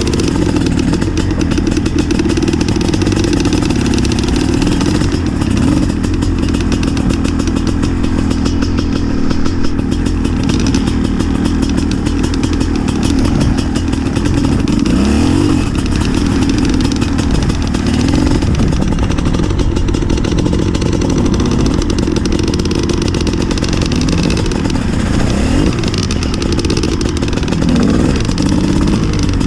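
Two-stroke engine of a 2012 Gas Gas EC 250 enduro bike under way, its revs rising and falling again and again as it is ridden. The bike is jetted very rich, which the rider says makes it oil up its spark plug when it runs at low revs.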